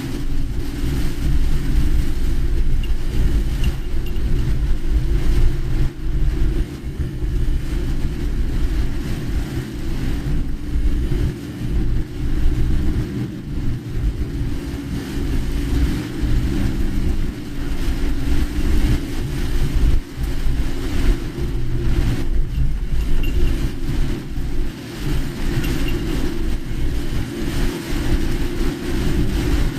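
Inside a moving car in heavy rain: steady low road and engine rumble, with a hiss of rain and spray over it.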